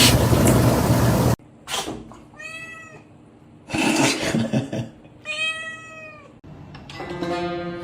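A loud rushing noise cuts off about a second and a half in. A domestic cat then meows twice, each meow a drawn-out call whose pitch rises and falls. Plucked music begins near the end.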